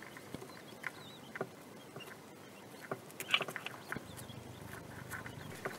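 Quail chicks hatching: faint scattered taps and scratches as they break through the shell, with a few soft peeps.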